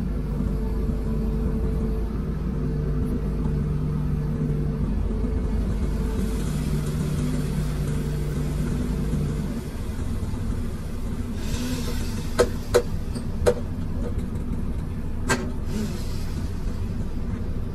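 Komatsu PC210 excavator's diesel engine running steadily, heard from inside the cab. About halfway through, its note drops to a lower steady pitch, and near the end four sharp knocks sound.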